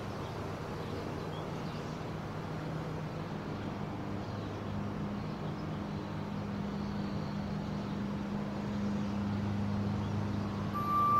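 A low, steady rumbling drone with a noisy hiss, swelling slightly; a clear high held tone comes in near the end.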